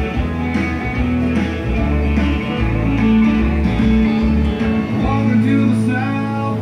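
Background music led by guitar, with a steady bass line.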